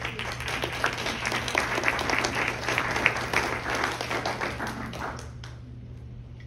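Audience applauding: many hands clapping at once, dying away after about five seconds.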